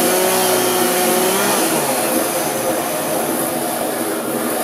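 Two chainsaws cutting logs: a Poulan Pro gas two-stroke chainsaw running at high speed, and the whir of a Ryobi 40V cordless electric chainsaw. The gas engine's steady pitch breaks up about a second and a half in, leaving a rougher machine whir.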